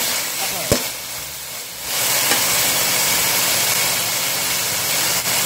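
Chicken, ginger and wood ear mushrooms sizzling in a hot wok while a metal spatula stirs them, with a sharp clink of the spatula against the wok near the start. The sizzle eases for a moment and then runs on steadily.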